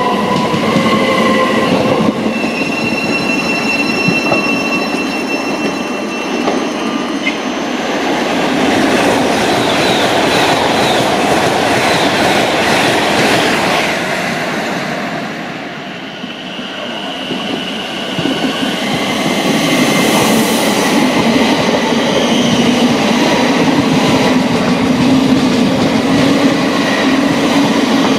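Electric passenger trains passing through a station: an electric multiple unit's motor whine fades at the start, with high steady tones over the next few seconds. Around the middle, an LNER Azuma (Class 800-series) rushes past at speed. The sound dips briefly, then another electric multiple unit passes with a steady rumble and rail noise to the end.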